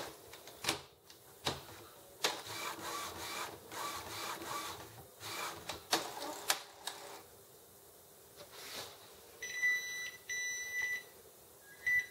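Epson XP-605 inkjet printer's print-head carriage motor whirring and clicking as the carriage travels across after the ink cartridges are reseated, while the printer re-checks them. Two steady beeps from the printer follow about nine seconds in, and a short beep comes at the very end.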